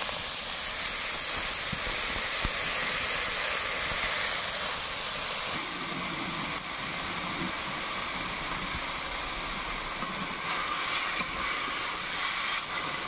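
Washed, still-wet chopped greens sizzling in hot oil in a large kadai, a loud steady hiss of steam that is strongest over the first five seconds and then settles to a lower frying sizzle. A spatula stirs the greens near the end.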